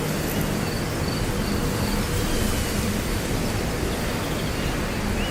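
Steady outdoor hiss of wild ambience, with faint, short, high chirps repeating now and then.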